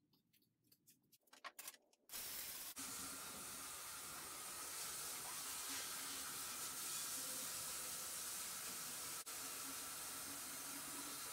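Kitchen faucet running water into a metal saucepan in the sink: a steady hiss that starts suddenly about two seconds in, after a few light handling clicks.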